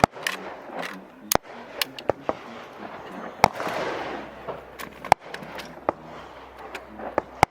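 Single gunshots at irregular intervals, some sharp and close, others fainter, with the strongest cracks about a second and a half, three and a half, five, and seven seconds in.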